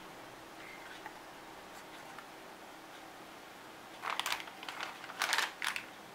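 Anti-static plastic bag crinkling in a cluster of short rustles as a motherboard is shifted on top of it, starting about four seconds in and lasting about two seconds.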